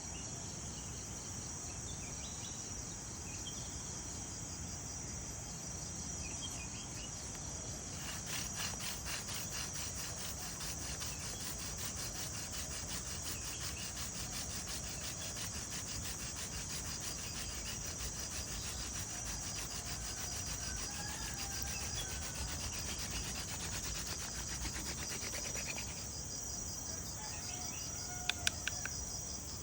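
Crickets chirping steadily, with a hand drill's wooden spindle rubbing fast against the hearth board from about eight seconds in until a few seconds before the end. A few sharp clicks come near the end.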